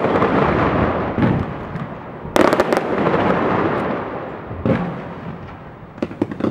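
Aerial fireworks bursting: a cluster of sharp bangs about two and a half seconds in, a single bang near five seconds and a few quick cracks near the end, over a dense crackling that fades away.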